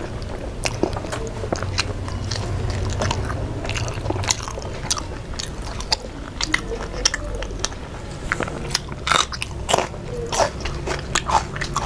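Mouth sounds of eating a fish, rice and curry meal by hand: chewing with many short, sharp lip smacks and crunches coming quickly one after another.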